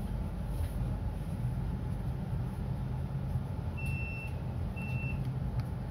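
Low, steady rumble of a tram running, heard from inside the car. Two short high beeps sound about four and five seconds in.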